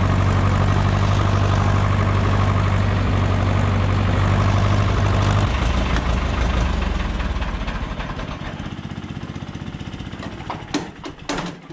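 Ursus C-360 tractor's four-cylinder diesel engine running, dropping to a lower idle about five and a half seconds in, then dying away as it is switched off. A few sharp clicks near the end.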